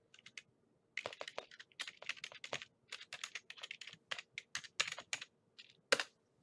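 Typing on a computer keyboard: a quick run of keystrokes, then a short pause and one louder keystroke near the end, the Enter key submitting the typed address.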